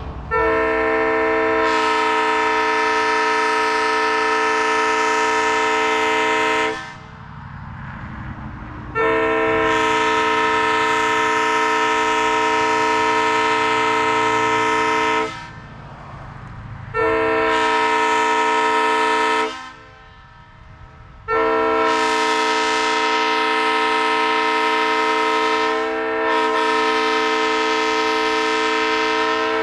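1960 Leslie Supertyfon SU3L aluminum Tabby three-chime air horn, with 25, 31 and 44 bells, sounding a steady chord in four blasts: long, long, short, then a longer one of about eight seconds. This is the long-long-short-long pattern of a train's grade-crossing signal.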